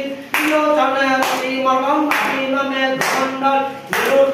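Voices singing a devotional chant together, with held notes that step in pitch, kept in time by a sharp clap a little under once a second.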